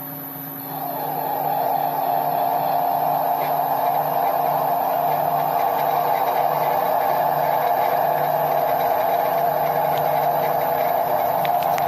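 Mini lathe taking a heavy turning cut in tool steel with a high-speed-steel tool bit: the motor's steady hum, then about a second in a loud, steady cutting noise that holds as the tool bites and peels off curled chips.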